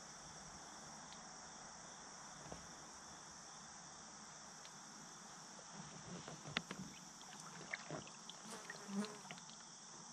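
Faint, steady high-pitched chorus of insects. A scatter of small clicks and knocks comes between about six and nine seconds in.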